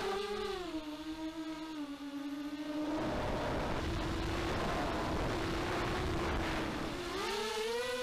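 Brushless motors and propellers of an RG210 racing quadcopter whining, heard through its onboard action camera: the pitch drops in steps over the first three seconds as the throttle eases, holds steady, then rises again near the end as the throttle comes back up. A low rushing noise joins about three seconds in.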